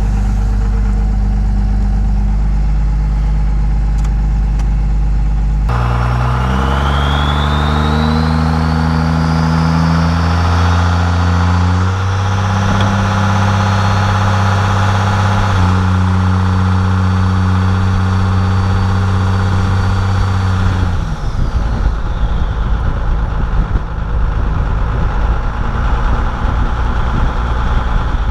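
First-gen Cummins 12-valve turbo diesel accelerating hard: the engine note climbs and steps down twice as the automatic transmission upshifts, while the HX35-based turbo's whistle rises and holds over it. About three-quarters through the throttle lifts, the whistle winds down and the engine falls back to a low rumble.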